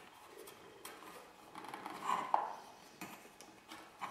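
Hard plastic weatherproof cap of a UHF TV aerial's terminal box being slid and pressed into place by hand: quiet rubbing and scraping of plastic against the box and metal, with a sharper click about two seconds in and another near the end.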